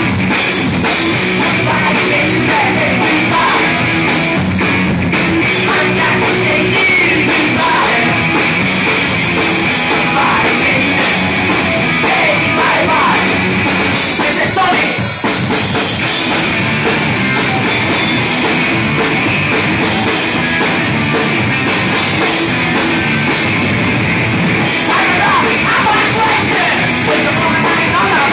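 Live rock band playing loud, hard-edged rock: electric guitar and bass over a pounding drum kit, with a brief drop about halfway through.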